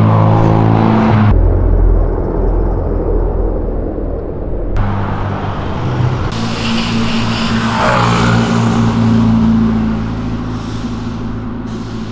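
Cars driving past on a street. An engine accelerates with rising pitch and cuts off abruptly about a second in. Later another engine runs steadily, with a brief rising whine about eight seconds in.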